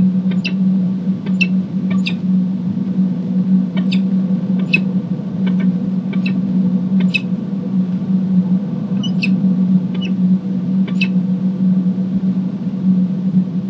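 Peregrine falcon giving repeated short, high 'ee-chip' calls, about a dozen with a brief pause in the middle, the call of a nest changeover. A steady low hum runs underneath.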